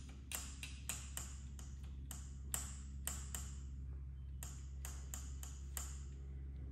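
Light, irregular metallic clicks and taps, some seventeen of them each with a short ring, as small hand tools work at the e-bike's handlebar brake-line fitting.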